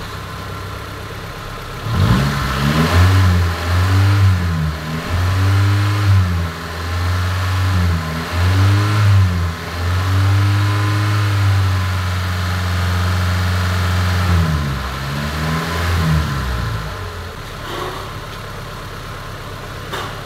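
Honda D15B 1.5-litre four-cylinder engine, freshly fitted with a replacement cylinder head, idling and then revved repeatedly: about two seconds in the throttle is blipped several times, held up for a few seconds, blipped again, and it drops back to a steady idle near the end.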